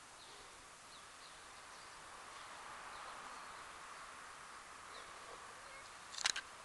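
Faint outdoor background noise with a few short, high bird chirps, and one sharp click or knock about six seconds in.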